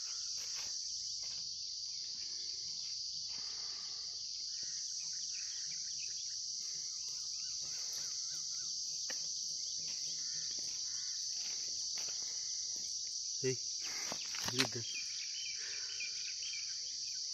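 Steady chorus of crickets, a continuous high-pitched trill. Two brief low sounds about fourteen seconds in.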